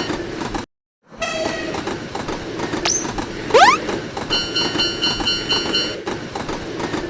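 A train running by with a steady rumble and rhythmic wheel clatter, cutting out briefly to silence just under a second in. A fast-pulsing, bell-like crossing alarm sounds over it twice, and quick rising swoops come about three and a half seconds in and again near the end.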